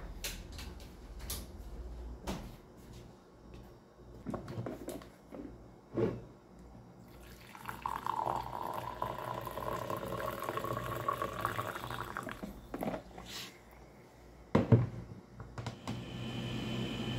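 Black coffee poured from a thermos flask into a glass mug, a steady pour lasting about four seconds, with light clicks and knocks of kitchenware around it. A single sharp knock near the end is the loudest sound.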